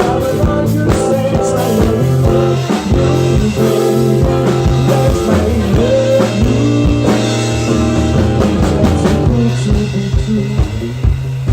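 Instrumental rock band music: electric guitar with bass and a drum kit playing a steady beat, with no singing.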